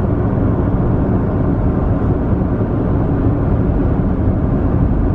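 Steady low rumble of road and tyre noise heard inside the cabin of a moving car, even in level throughout.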